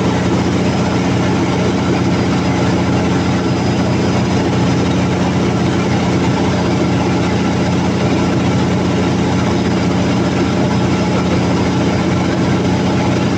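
Freshly overhauled Cummins QST30 V12 diesel genset engine running steadily on test, loud and even, with no change in speed.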